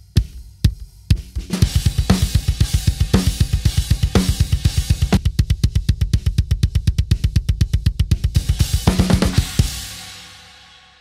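Double bass-drum pedal with wooden beaters striking a Danmar metal kick pad, heard through the soloed kick-drum mic. A few spaced kicks, then a fast, even double-kick run for about eight seconds, with cymbal wash bleeding in, then a ringing fade.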